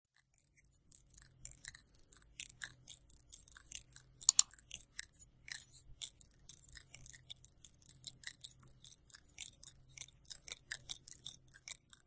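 Faint, irregular dry clicks and crackles, several each second, starting about a second in, with a slightly louder cluster near the middle, over a faint low hum.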